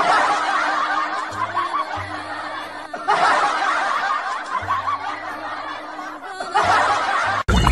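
Rapid snickering laughter in three stretches, each starting abruptly, with a low hum coming and going underneath.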